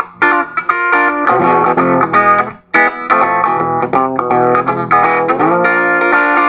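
Electric guitar playing a boogie-blues tune: short, choppy chords and runs with brief gaps between them, and a chord slid upward about five seconds in.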